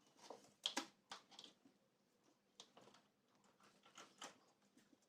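Faint, irregular light clicks and rustles of handling, the sharpest about a second in.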